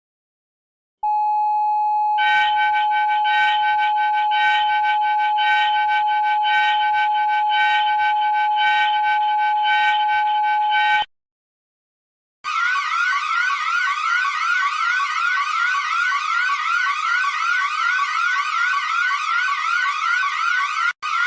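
Two electronic emergency-alert alarm tones, one after the other. The first is a steady tone, joined about a second later by a pulsing chord of higher tones at about two pulses a second. After a short gap, the second is a siren-like tone that sweeps rapidly upward, repeating a few times a second.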